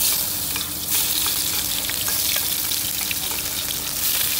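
Garlic and sliced red chillies sizzling loudly in hot oil in a wok. The sizzle starts suddenly and swells about a second in as more goes into the oil, with small clicks from stirring.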